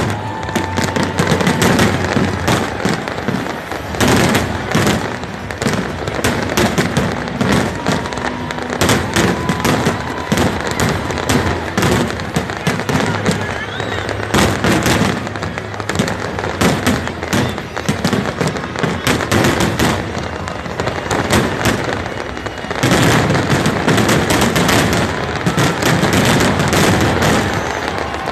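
Dense New Year's fireworks and firecrackers crackling and banging without a break, with a few faint whistles. The barrage thickens and grows louder about two-thirds of the way through.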